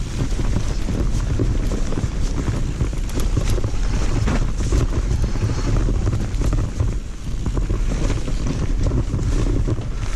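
Wind buffeting a mountain biker's action camera microphone while riding a rough trail, over a steady low rumble of tyres and frequent rattling clicks from the bike.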